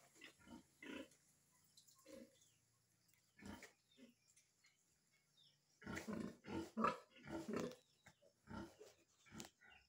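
Pig grunting in short bursts: a few scattered grunts at first, then a quick run of grunts in the second half.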